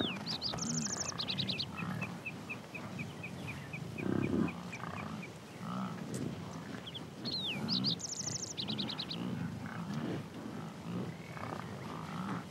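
Bison in a herd grunting low, on and off, with one louder grunt about four seconds in. A bird sings the same short phrase of a sweep and trills twice, near the start and again later, over a steady run of high chirps.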